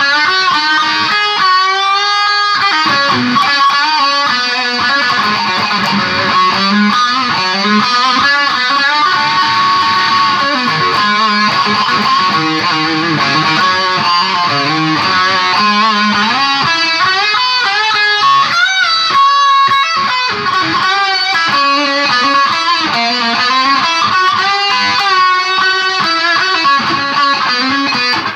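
Stratocaster-style electric guitar played continuously, a run of picked notes and chords with bent notes now and then.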